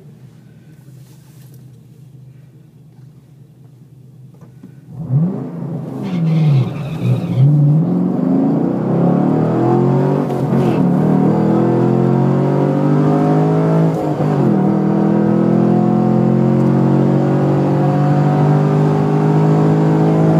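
2010 Chevrolet Camaro SS's 6.2-litre V8 heard from inside the cabin: idling quietly for about five seconds, then launched at full throttle for a quarter-mile drag run. The engine note climbs and drops back at each upshift, several times, and keeps rising to the end.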